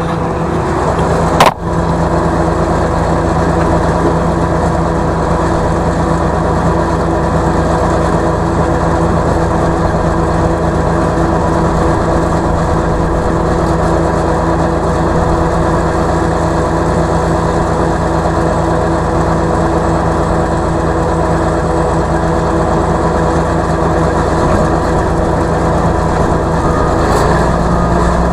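Tractor engine running steadily, with one sharp knock about a second and a half in. The engine note shifts lower near the end.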